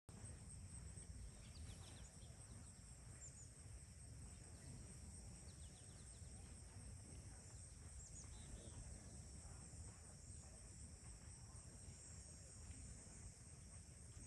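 Faint outdoor ambience: a steady, high insect chorus with a low rumble of wind beneath it, and a few brief, high chirps from small birds in the first half. The geese are silent.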